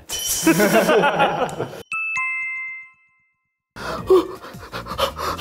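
A two-note falling electronic chime, a high note then a lower one, ringing out and fading over about a second, between stretches of voices talking, with a moment of complete silence after the chime.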